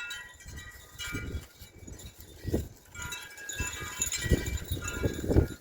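Metal wind chimes ringing, several overlapping tones sounding on and off, with wind buffeting the microphone.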